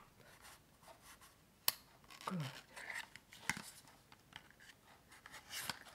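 Kitchen knife blade slitting and scraping along the wrapped cardboard edge of a small mascara box, scratchy rustles broken by a few sharp clicks.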